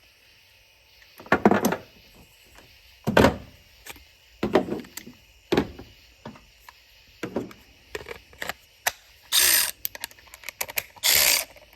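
Knocks and clunks of a cordless 12 V ratchet and socket being handled and fitted onto a bolt. Then, near the end, the ratchet's motor runs in short bursts as it drives the bolt tight.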